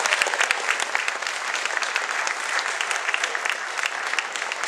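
Audience applauding: a dense, steady patter of hand claps that eases off slightly toward the end.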